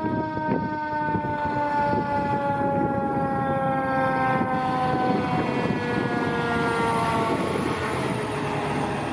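Fire engine siren sounding one long wail that falls slowly and steadily in pitch, over the rumble of the engine as it pulls out on an emergency response.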